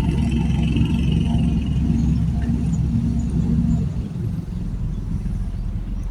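Low, steady engine rumble, which eases somewhat about four seconds in.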